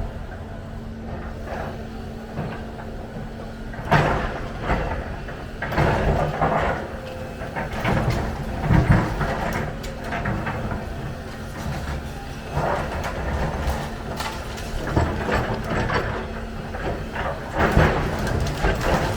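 Volvo EC300 excavator at work: its engine runs with a steady hum while loud, irregular bursts of clatter come every two to three seconds, about six times.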